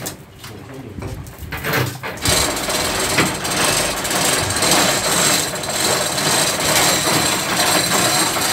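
A power tool starts about two seconds in and keeps running with a steady, harsh noise, after a few light knocks.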